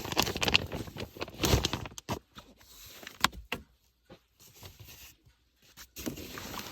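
Camping gear being handled at the car: rustling and a series of knocks and clunks, with sharp knocks about a second and a half in and about three seconds in.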